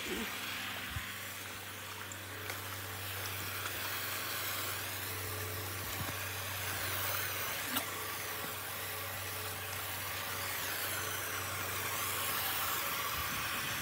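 Steady hiss of water spraying from a garden hose nozzle onto paving stones, with a steady low hum underneath.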